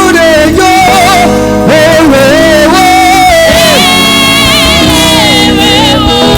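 Live gospel praise music: a singer's voice with vibrato over sustained keyboard chords.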